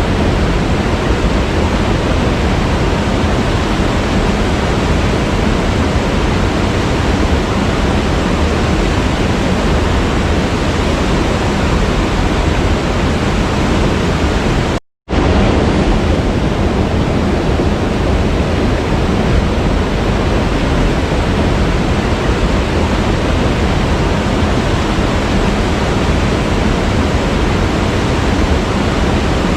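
Waterfall: a steady rush of falling water. It cuts out to silence for a fraction of a second about halfway through, then comes straight back.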